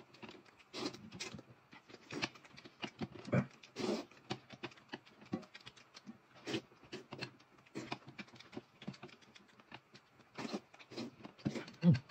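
Close-miked eating sounds: irregular wet smacks, clicks and crunches of chewing and biting into boiled corn on the cob and mouthfuls of noodles.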